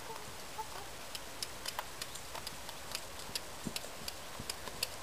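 Hoofbeats of a ridden horse on a sand arena: faint, irregular light clicks and a few soft thuds, coming more often as the horse nears.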